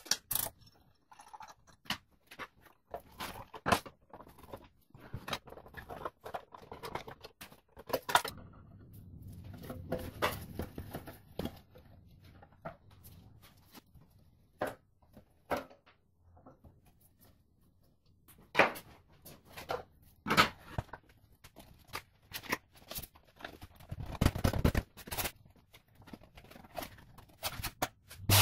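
Scattered clicks, knocks and rustling of hand work on a switched-off bench belt-and-disc sander: hand tools on its metal housing while its sanding belt is changed. The knocks come at irregular times, the loudest about eight seconds in and again about twenty seconds in.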